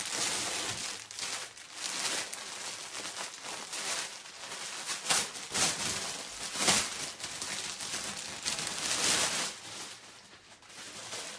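Rustling and crinkling of folded embroidered dress fabric being handled and shifted, with louder rustles about five, seven and nine seconds in, dying down near the end.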